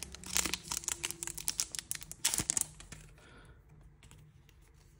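A set of photo cards in crinkly plastic wrapping being unwrapped and handled: a fast run of small clicks and crackles for nearly three seconds, then only faint occasional rustles.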